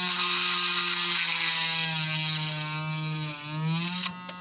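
Small handheld electric micro drill whining steadily as its bit bores into the end grain of a small wooden stick. The pitch sags briefly around three seconds in as the bit bites, and the motor stops about four seconds in.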